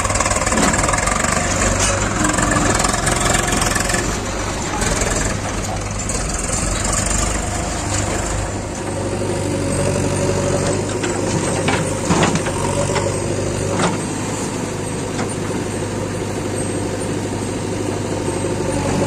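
Heavy diesel engines of a JCB backhoe loader and tractors running steadily, with a few sharp knocks about two-thirds of the way through.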